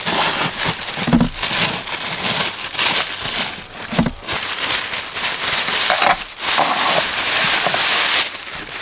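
A plastic bag rustling and crinkling loudly as it is handled, with brief breaks about four and about six seconds in.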